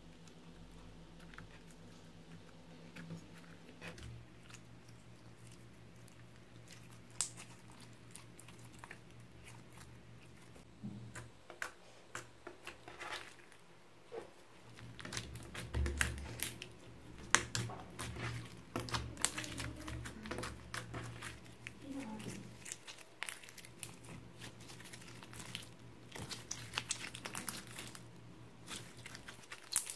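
Slime being poked, stretched and squeezed by hand, giving many small sticky clicks, pops and squelches. It starts sparse and soft and becomes denser and louder about a third of the way in, when a pink glitter slime is being stretched and kneaded.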